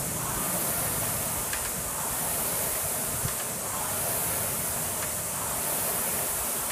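Concept2 rowing machine's air-resistance flywheel fan whooshing under hard rowing, surging with each stroke about every two seconds.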